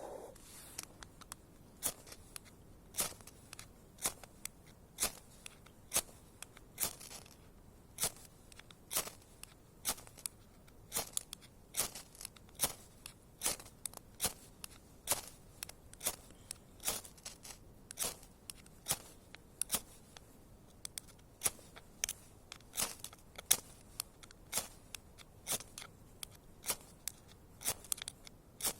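Small survival fire crackling: irregular sharp pops and snaps, sparse at first and coming more often in the second half.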